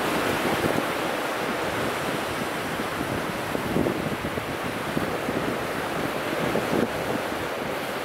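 Wind-driven surf breaking and washing up a pebble beach in continuous churning waves, with strong wind in the background.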